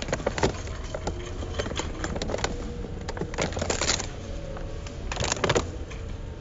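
Plastic-wrapped meat packages being handled over a wire shopping cart: crinkling of the plastic film and light clatter in several irregular bursts, the loudest near the start and near the end, over a steady low hum.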